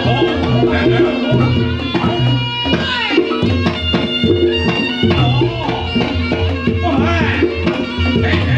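Reog Ponorogo ensemble playing: a steady drum rhythm under repeated ringing gong-chime tones, with a wavering high melody line above.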